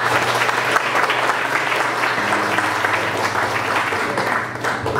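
Congregation applauding: many hands clapping together, dying away near the end.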